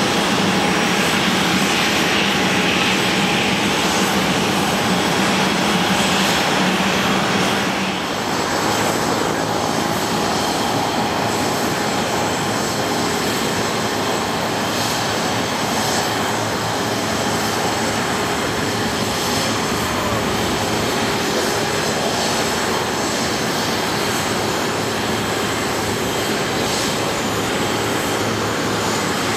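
Business-jet turbofan engines running on an airport apron, a steady rush and whine with a low hum underneath. About eight seconds in the sound cuts to a different steady jet noise, without the hum: the three turbofans of a Dassault Falcon 900EX taxiing.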